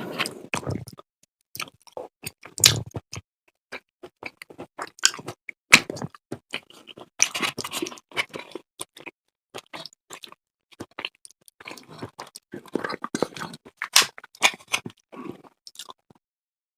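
Close-miked mouth sounds of eating: wet chewing and smacking in quick irregular clicks, stopping shortly before the end.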